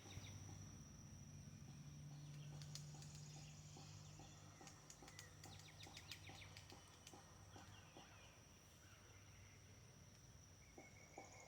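Faint woodpecker pecking at wood: short, single taps about two a second. A steady high insect trill runs underneath, with a few brief bird chirps.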